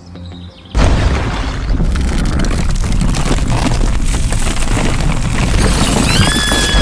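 A sudden loud boom about a second in that carries on as a heavy, continuous rumble, with a short high-pitched cry near the end.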